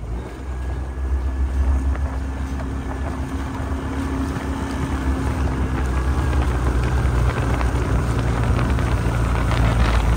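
A motorboat engine running steadily, with a faint held hum and a heavy wind rumble on the microphone. Water splashes from kayak paddles can be heard over it.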